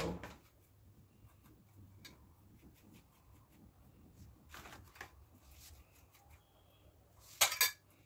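Quiet kitchen handling sounds while bread pizza is being topped: a few faint taps and clinks of dishes and utensils, with a short, louder burst of handling noise near the end.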